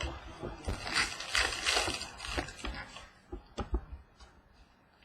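Football trading cards being handled and flipped through, a dry rustle and slide of card stock with light clicks, thinning to a few taps about three seconds in and then near silence.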